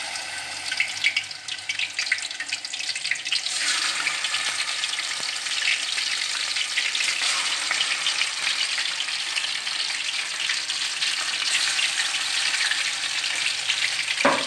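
Marinated chicken pieces frying in hot oil in a karahi: a steady sizzle with dense crackling, growing fuller about three and a half seconds in as more pieces go into the oil.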